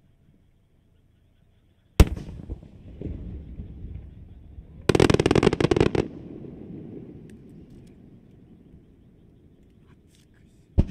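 Fireworks: a sharp shell burst about two seconds in with a rolling rumble after it, then about a second of dense crackling pops, and another sharp bang near the end.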